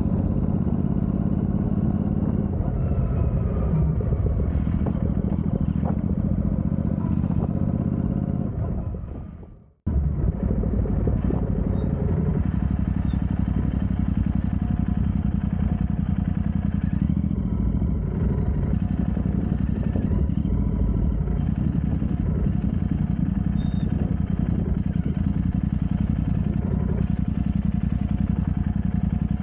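The Continental GT's engine running steadily while under way. The sound fades out about nine seconds in and cuts back in abruptly about a second later.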